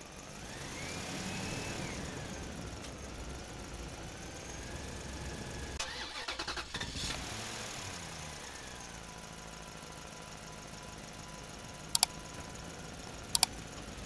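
Small electric motor of a homemade toy tractor whining as it runs. The whine rises steeply about a second in, falls back and holds steady, with a stretch of rattling around the middle and two sharp clicks near the end.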